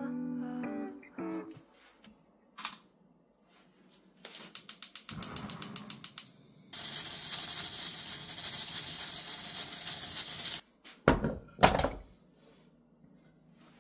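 Gas stove's igniter clicking rapidly, about six clicks a second for two seconds, as the burner under a stainless steel pressure cooker is lit. Then a steady hiss of steam from the pressure cooker that cuts off suddenly, and two low thumps as the pot is set down on a wooden stand.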